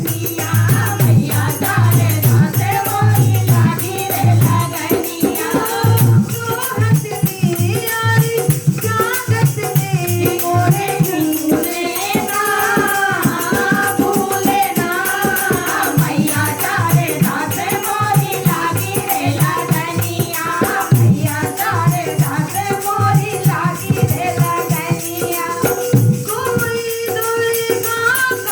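Hindi devotional song to the goddess Bhavani sung with dholak drum accompaniment and a steady rhythmic rattle of shaken percussion.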